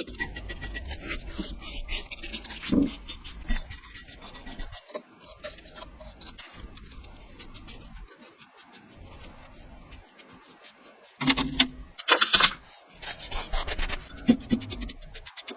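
Rapid rubbing and scraping strokes on the rusty metal of a wood stove during rust removal, with louder, harsher passes about two-thirds of the way through and again near the end.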